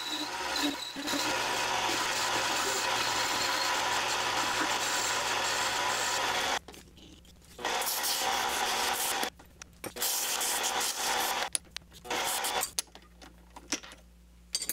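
Mini lathe turning aluminium: a steady cutting noise over the motor hum as a carbide tool cuts a bevel on the spinning part. About six and a half seconds in, this gives way to three bursts of abrasive rubbing as sandpaper is held to the spinning part, with short quiet gaps between them. Near the end only a faint hum remains.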